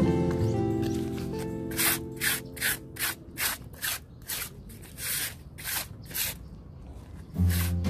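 Scrubbing strokes, about two a second, as something is rubbed back and forth across a flat stone slab by hand.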